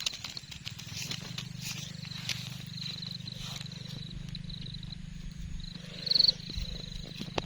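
Evening chorus of calling frogs and insects: a steady, fast-pulsing low drone under a thin high trill, which grows briefly louder a little after six seconds.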